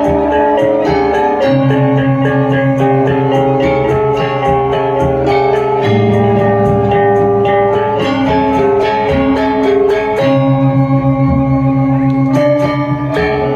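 Balinese gamelan music: metallophones striking a quick, steady run of ringing notes over low held tones.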